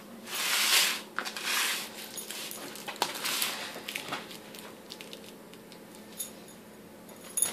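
Foil cake tray scraping across a countertop as it is turned by hand, in two pushes about a second apart, followed by a few light clicks and crinkles of the foil.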